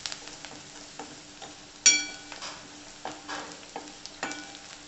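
A metal spatula stirs and scrapes chopped onion and spices frying in oil in a stainless steel kadhai, with a soft sizzle underneath. About two seconds in the spatula strikes the pan with a sharp metallic ring, and it strikes again more softly near the end.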